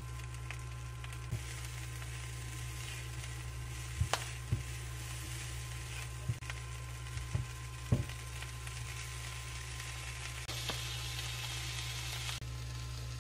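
Corn kernels sizzling in a non-stick frying pan, with a spatula knocking against the pan several times, over a low steady hum. Near the end the sizzle grows louder for a couple of seconds as a beef steak is frying in the pan.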